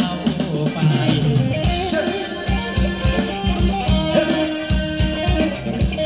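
Thai ramwong dance music from a live band over loudspeakers: a steady drum beat with guitar.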